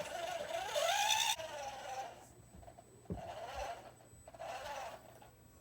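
Whine of a radio-controlled model's electric motor, its pitch rising and falling as it works, loudest for the first second or so before cutting off sharply, then running fainter in short spells. A low thump comes about three seconds in.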